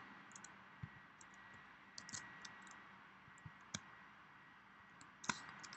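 Faint, scattered clicks of a computer keyboard and mouse while text is edited, irregularly spaced, with a sharper click near the end.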